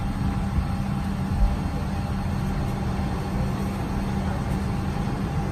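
Steady low rumble and hum inside the cabin of a Boeing 777-300 parked at the gate, with a steady mid-pitched tone over it. There is one brief low thump about a second and a half in.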